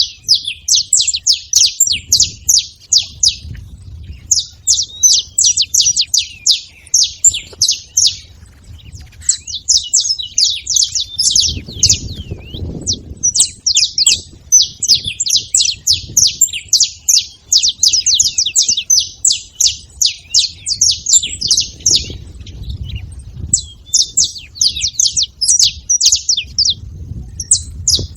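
Saffron finch singing in long runs of rapid, high chirps, broken by short pauses.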